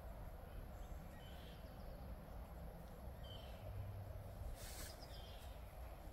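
Quiet outdoor field ambience: a steady low background rumble with a few short, high bird chirps scattered through it, and a brief hiss a little past the middle.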